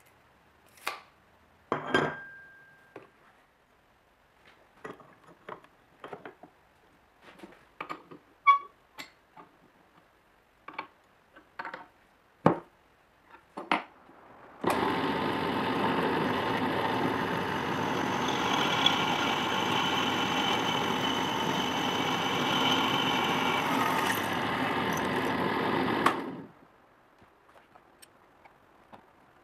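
Scattered clicks and knocks of steel parts and a tape measure being handled, then an electric drill press runs steadily, drilling into a steel clamp blank, for about eleven seconds before stopping.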